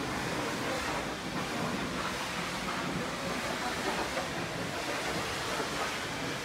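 Steady hissing noise with no distinct events.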